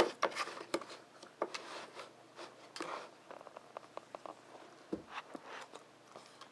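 Wooden pieces of a Nina Ottosson Dog Fighter puzzle board knocking and clicking as a dog noses and paws at them: irregular light taps throughout, with a duller thump about five seconds in.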